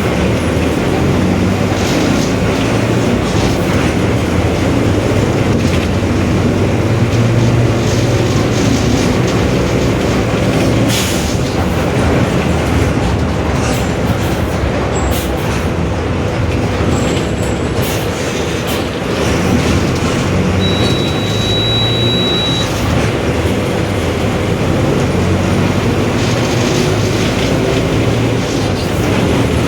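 Mercedes-Benz OF-1721 BlueTec 5 city bus under way, heard from inside the cabin: a steady engine drone under a dense body rattle, with the rear differential growling. A few knocks sound about a third of the way in, and a short high beep follows about two-thirds in.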